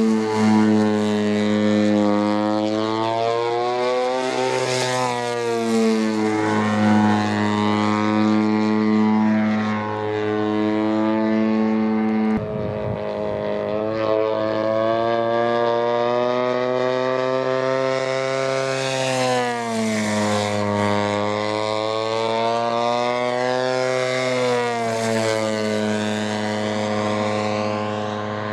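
Propeller engine of a 104-inch Slick radio-controlled aerobatic plane running in flight, a steady drone whose pitch rises and falls as the plane throttles and manoeuvres. The sound changes abruptly about twelve seconds in.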